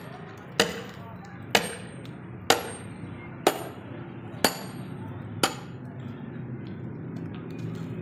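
Sledgehammer striking a metal wedge set in a log to split firewood: six heavy blows about a second apart, each with a short metallic ring. The strikes stop about two-thirds of the way through.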